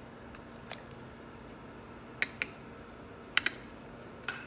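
Kitchen utensils clicking and tapping against a cooking pot: about six short, sharp clicks, two of them in quick pairs, over a steady low hum.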